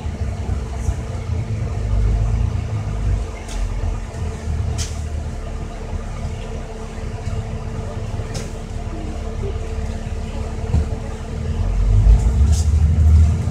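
Inside a moving bus: the engine and road noise keep up a steady low rumble with a constant hum, broken by a few sharp clicks or rattles. The rumble grows louder near the end.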